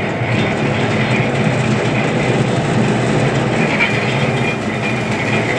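Sheet rolling machine running with a steady, dense mechanical rattle while a metal sheet is fed between its rollers.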